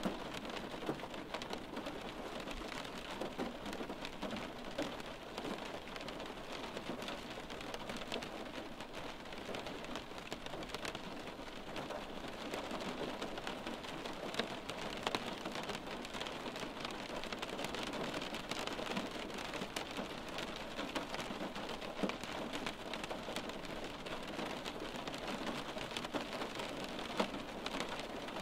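Steady rain on window glass heard from inside: an even hiss of rainfall dotted with many small raindrop taps against the pane.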